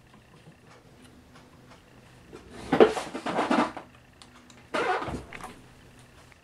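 Metal-on-metal scraping and rattling from a small Allen key working the set screws of a faceting machine's dial-indicator gauge mount: two dense bursts, the first about a second and a half long, the second shorter near the end.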